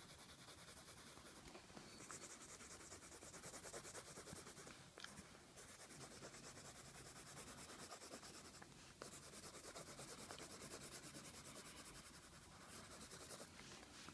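Colored pencil scratching quickly back and forth on paper as an area is shaded in, faint, in several spells with brief pauses between them.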